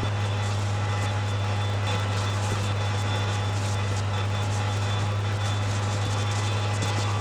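A machine's steady drone: a strong low hum with an even whooshing hiss over it, unchanging in level.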